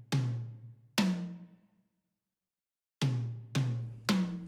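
Short musical hits with drums, each struck and dying away: two about a second apart, a silent gap, then three more in quick succession.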